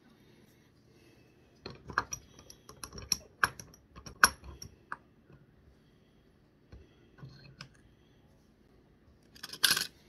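Sharp metallic clicks and clinks from small metal parts and a bench vise being handled, in quick bunches from about two to five seconds in, a few more later, and a dense rattle just before the end.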